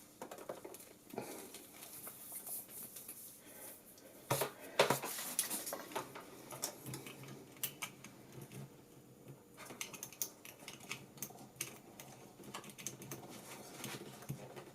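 Hands handling a USB cable and plugging it into a condenser microphone, making small plastic clicks, taps and rattles. The clicks are scattered and irregular, with a loudest cluster about four to five seconds in.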